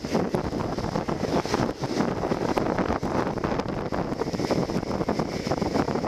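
Longboard wheels rolling over rough asphalt: a steady gritty rumble dotted with small clicks from the road surface, with wind on the microphone.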